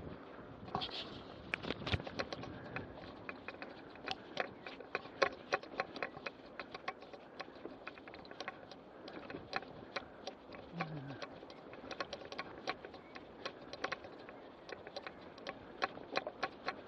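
Mountain bike rolling over a gravel path: steady tyre noise on loose grit, broken by many quick, irregular clicks and rattles of stones and the bike.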